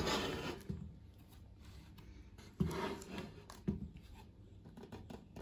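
A car amplifier being handled and positioned on a wooden mounting board: a short rubbing scrape at the start, then two soft knocks about a second apart and a few faint clicks.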